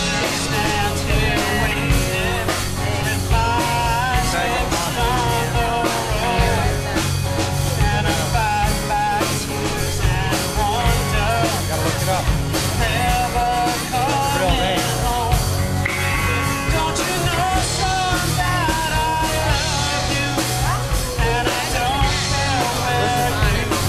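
Live rock band playing through a PA: electric guitar, electric bass and drum kit with a sung vocal line on top.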